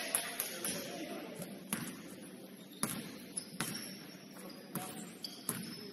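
A basketball bouncing on a gym floor during play, about eight sharp bounces at uneven intervals, over faint players' voices.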